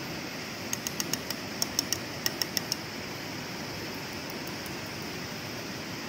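Steady rushing noise. About a second in comes a quick run of about a dozen sharp, high ticks, lasting roughly two seconds.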